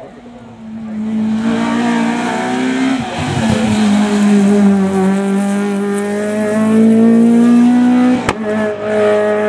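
Honda Civic hatchback rally car at full throttle on a tarmac stage, its engine note building as it approaches. The pitch drops briefly about three seconds in, then climbs steadily as it accelerates away. A single sharp crack comes near the end.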